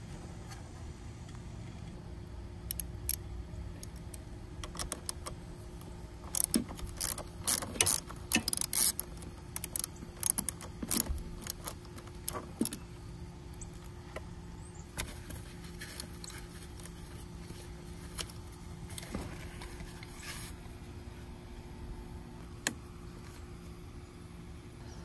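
Metallic clicking and clinking of a 10 mm socket wrench on a car battery's terminal nut as the terminal clamp is loosened. The clicks come in quick clusters, densest about a third of the way in, then thin out to scattered clicks over a steady low hum.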